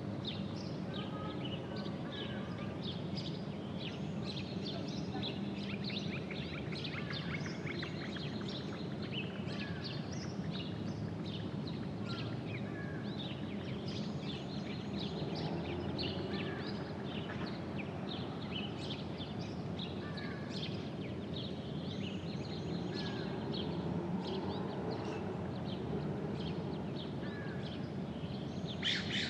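Outdoor ambience: many small birds chirping throughout, over a steady low background din.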